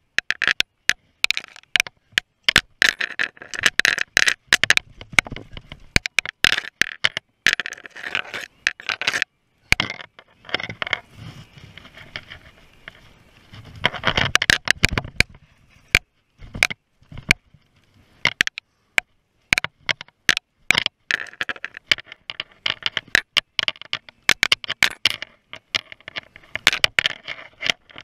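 Mountain bike rattling over a rough dirt downhill trail: a constant, irregular clatter of sharp knocks and rattles, broken by brief quiet gaps, with a heavier, rumbling stretch about halfway through.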